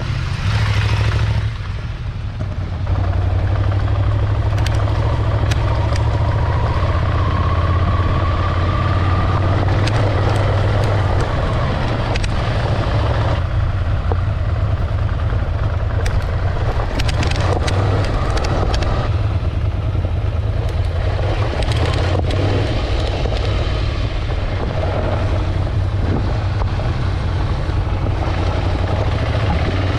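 Ducati Scrambler motorcycle's L-twin engine running steadily on the move, a low hum with a faint rising tone about a quarter of the way in. Scattered short clicks and rattles come about halfway through.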